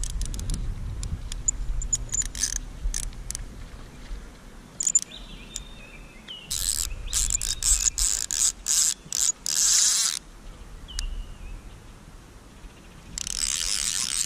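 Fly reel clicking in rapid bursts as line runs off or is reeled back while a big hooked brown trout is played on the rod. The clicking is densest from about six to ten seconds in.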